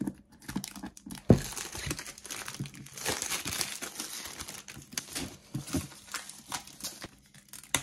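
Clear plastic shrink wrap being cut and peeled off a cardboard box, crinkling and tearing, with a sharp knock about a second in.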